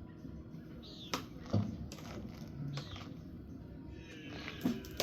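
A few scattered knocks and a dull thump, with two short falling squeaks, as a heavy steel rolling tool locker is tipped and shifted by hand.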